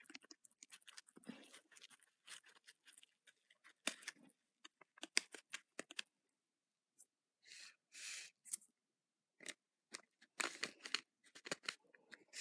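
Plastic bag crinkling in the hands as powdery bouncy-ball crystals are squeezed out of it into a plastic ball mold: many small crackles, with a few short rustling bursts in the second half.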